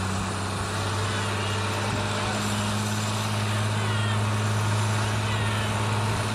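Farm tractor engine working hard under load as it drags a weight-transfer sled, a loud steady low drone that holds one pitch and grows a little louder partway through.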